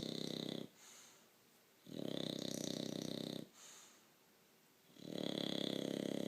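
Bulldog snoring: long fluttering snores that come about every three seconds, one fading out near the start, then two full ones.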